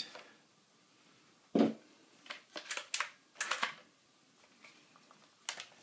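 Handling of an ISSC Mk22 .22 LR rifle and its detached magazine: a dull knock about one and a half seconds in, then a quick run of sharp clicks over the next two seconds and one more click near the end.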